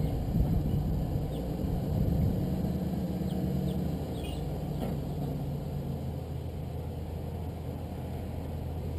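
Pickup truck engine running at low revs while it slowly backs a loaded car trailer. It is a little louder for the first couple of seconds, then settles to a steady idle.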